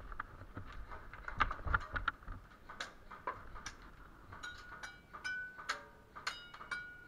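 A scatter of sharp clicks and ticks. In the second half several of them carry a brief metallic ring.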